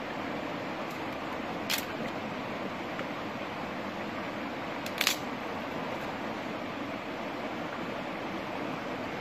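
Shallow stream rushing steadily over rocks, with two sharp cracks of wood being worked by hand, about a second and a half in and about five seconds in, the second the louder.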